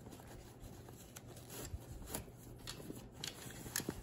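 Faint rustling of a cloth pouch being handled, with a few small scattered clicks and taps.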